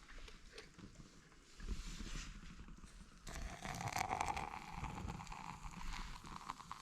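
Food sizzling in a pan on a Trangia spirit stove, with many small crackles; the sizzle gets louder about three seconds in.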